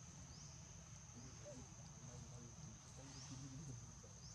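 Quiet outdoor ambience: a steady high insect drone with short rising chirps now and then, over a faint low murmur in the middle.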